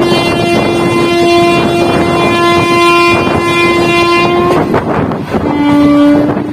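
Locomotive horn sounding one long blast, then a shorter, lower-pitched blast near the end, over the rumble and wind of the moving train.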